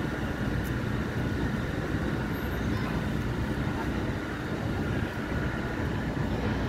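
Steady city street noise: a low traffic rumble with the faint steady hum of a CAF light-rail tram standing at the platform.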